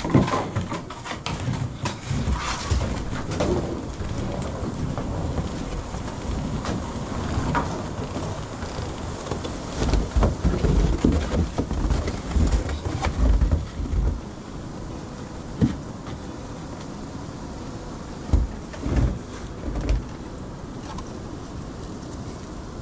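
Gusting wind buffeting the microphone in irregular low rumbles, heaviest about ten to fourteen seconds in and in a few short blasts near the end, over scattered knocks and rustles.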